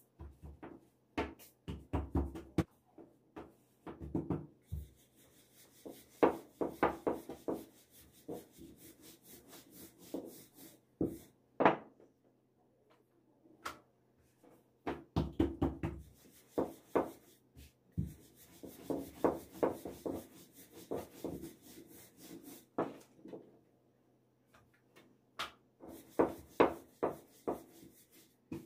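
Wooden rolling pin working thin dough on a wooden board: runs of rubbing strokes with sharp knocks of wood on wood, broken by short pauses.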